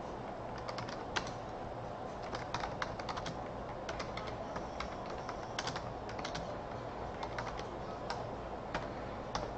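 Typing: irregular short key clicks, some in quick runs, over a steady low hum.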